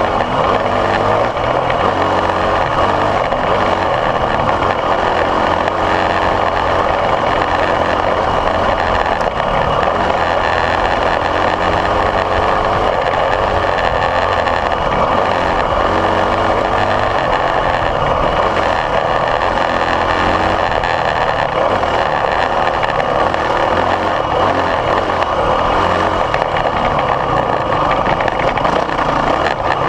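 Dirt bike engine running steadily on the move along a trail, its revs wavering a little, heard close up from the bike carrying the camera.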